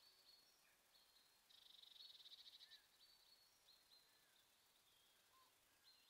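Faint songbird calls and song from several small birds, short high chirps and a few short falling notes. About a second and a half in, a rapid trill lasting just over a second is the loudest sound.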